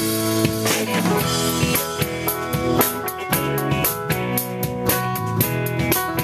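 Live rock band playing a song: drum kit keeping a steady beat under strummed acoustic and electric guitars.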